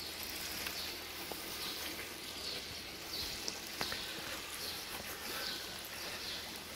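Outdoor ambience: a steady hiss, with short high chirps repeating about twice a second from about two seconds in.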